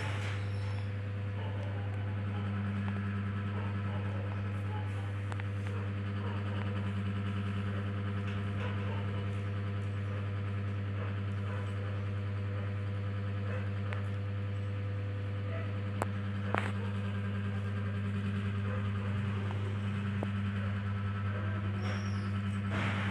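A steady low hum with a few faint taps, and two sharp clicks a little over half a second apart about sixteen seconds in.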